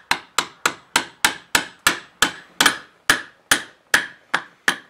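A small tape-wrapped hammer tapping the hammer pin into an AR-308 lower receiver, driving the pin home: about fourteen light, even taps, roughly three a second, each with a brief metallic ring, stopping just before the end.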